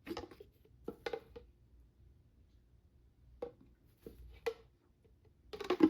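Short plastic clicks and knocks from the detachable dust canister of a Bissell PowerClean corded stick vacuum being unlatched, emptied and handled, with the motor off. They come in a cluster near the start, a few in the middle and another cluster near the end.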